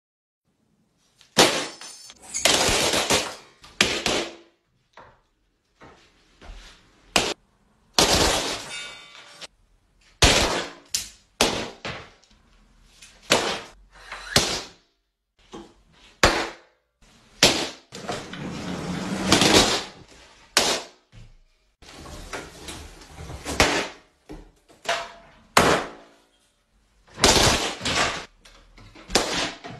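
Balloons bursting one after another, about two dozen sharp bangs at irregular intervals, mixed with knocks and clatter from homemade wooden balloon-popping contraptions swinging and striking. Some bangs trail off in a second or so of rattling noise.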